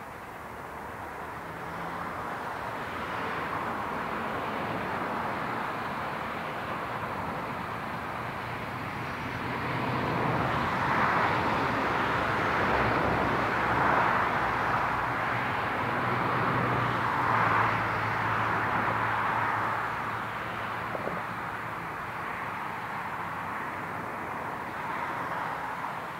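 Steam locomotive working a passenger train at a distance, its exhaust and the train's running blending into a steady rush that swells to its loudest midway and then eases as the train draws away.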